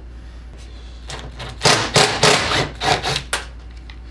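A cordless impact driver whirs in a few short, irregular bursts, with the bit and a prying tool scraping on a stripped screw in the plasma TV's metal back cover as the screw refuses to catch its threads. A low steady hum runs underneath.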